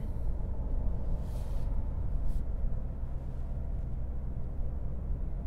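Steady low road and engine rumble inside the cabin of a 2018 Toyota Camry XSE V6 driving up a highway on-ramp, with a brief faint hiss about a second and a half in.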